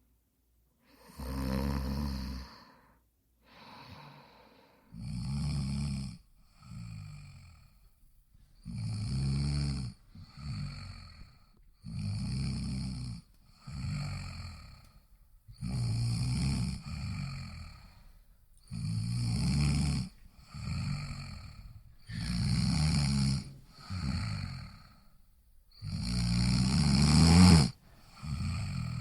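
Snoring, one snore about every three to four seconds, each a longer sound followed by a shorter one. The loudest snore comes near the end.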